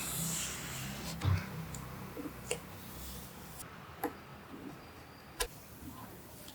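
A few sharp, separate clicks and taps, a second or more apart, over a faint low hum that fades after the first second or so.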